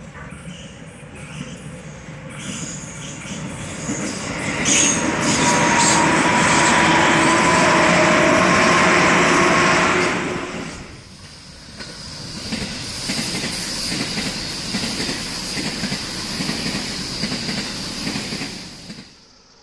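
A JR 205 series electric commuter train approaches and runs past close by, its wheels rumbling on the rails with steady whining tones over the noise. About halfway through, the sound cuts to a 223 series electric train passing, with a steady high whine until it stops abruptly near the end.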